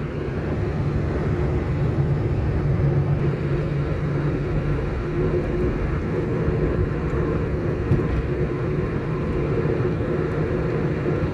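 Steady road noise inside a moving car at cruising speed: a constant low rumble of engine and tyres on the paved road.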